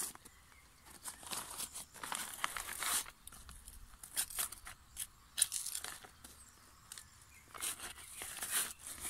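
Small hand trowel digging and scraping soil out of a pocket cut into a plastic pond liner, with the liner sheet crinkling and rustling, in irregular scratchy bursts and sharp clicks.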